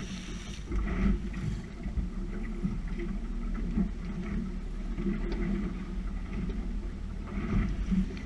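Small boat at sea: steady low rumble of wind and water against the hull, rising and falling unevenly.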